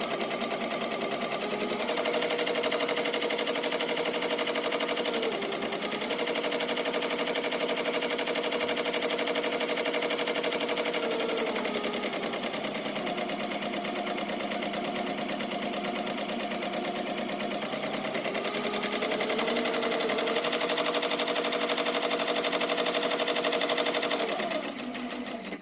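Ricoma multi-needle embroidery machine stitching at speed: a fast, steady clatter of the needles with a running motor tone that shifts pitch a few times as the stitching speed changes. It stops near the end.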